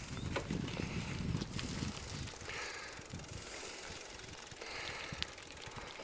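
Bicycle rattling and clicking as it rides over a cracked concrete forest track, with a low rumble of wind on the microphone for about the first two seconds.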